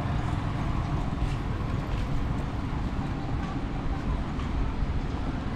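Steady low rumble of a moving road vehicle driving along.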